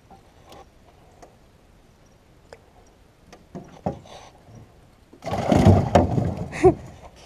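Rattling and knocking in an aluminum jon boat as a hooked fish is brought aboard: a few faint clicks, then a loud clatter for about two seconds near the end.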